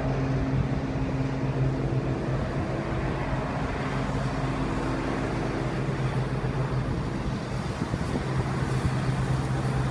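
Diesel multiple unit (Class 170 Turbostar) moving off, its underfloor diesel engines giving a steady low hum that dips briefly near the end.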